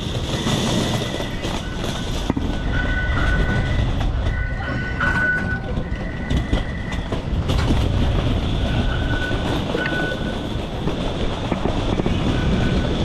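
Taipei Metro train running through the station: a steady rumble with high thin whining tones that come and go.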